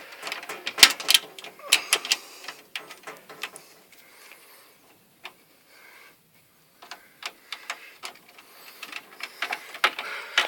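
Irregular clicks and taps of a screwdriver and wire being worked at a breaker in a metal electrical panel, with a quiet spell in the middle.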